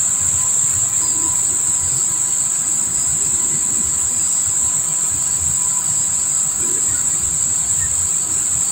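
Steady, high-pitched drone of insects calling without a break.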